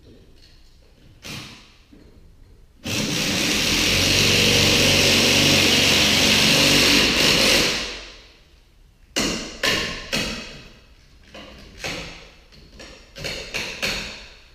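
A power tool runs steadily for about five seconds, starting abruptly and winding down, then a quick series of sharp metal knocks and clicks.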